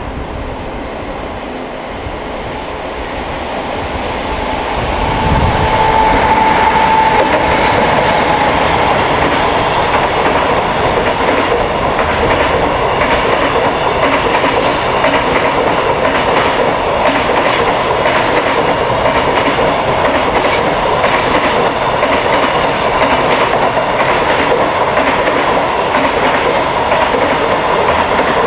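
EF200 electric locomotive hauling a container freight train past at speed, growing louder for the first few seconds until the locomotive passes about five seconds in. A long string of container wagons then rolls by, with a clickety-clack of wheels over rail joints.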